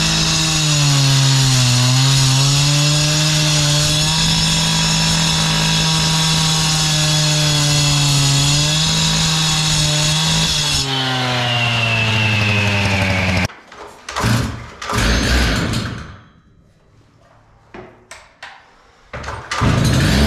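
Two-stroke gas concrete cut-off saw running at high speed, its blade grinding through a concrete foundation wall, the engine pitch dipping under load about two seconds in. About eleven seconds in, the grinding stops and the engine note drops. It then cuts off abruptly, leaving a few short scattered noises and a quieter gap, before the saw's engine is heard again near the end.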